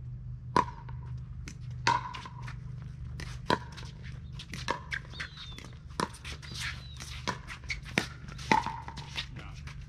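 Pickleball rally: the hollow plastic ball struck by paddles and bouncing on the court, a quick series of sharp pocks about every half second to second, several ringing briefly. A steady low hum runs underneath.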